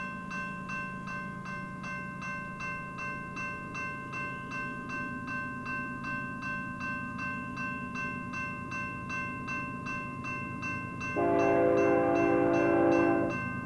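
Railroad grade-crossing bell ringing at a steady rapid beat over the low rumble of an approaching BNSF freight train. About eleven seconds in, the locomotive horn sounds one long blast of about two seconds.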